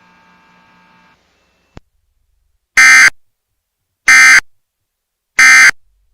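Emergency Alert System end-of-message data tones: three short, loud, buzzy bursts about a second and a half apart, signalling the end of the Amber Alert. Before them a faint hum and a single click.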